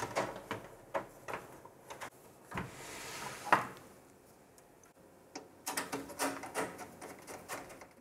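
Small metal mini-ITX PC case (Silverstone SG05) being handled on a desk: light clicks and taps of its panels, then the cover shell slid along with a scraping swish that ends in a sharp knock about three and a half seconds in, and a run of rattling clicks near the end.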